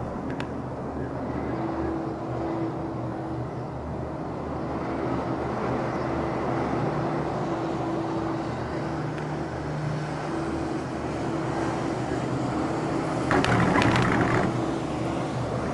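Steady rumble and hum inside a Leitner six-seat gondola cabin travelling down the line on its haul rope. About a second and a half before the end comes a louder rattling clatter lasting about a second, as the cabin's grip runs over a tower's roller sheaves.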